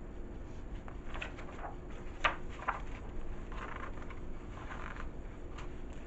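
Faint rustling and handling noises, with two light ticks a little after two seconds in, over a steady low hum.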